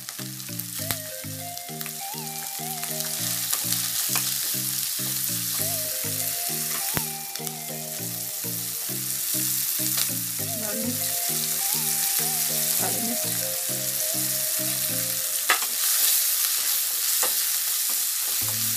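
Chopped capsicum, onion and green chilli sizzling in hot oil in a wok on a high flame. A wooden spoon stirs them, with occasional sharp clicks of the spoon against the pan.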